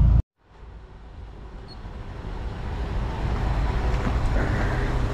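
Low car cabin rumble that cuts off abruptly a moment in, followed by a steady low outdoor vehicle rumble that fades in and grows louder over the next few seconds.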